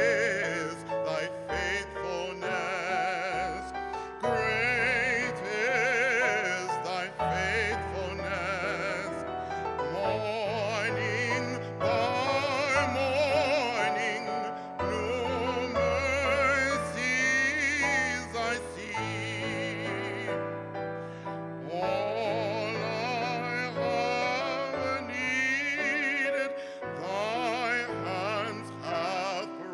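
A man singing a slow solo with a strong, wide vibrato, accompanied by a Korg electronic keyboard playing chords over held bass notes.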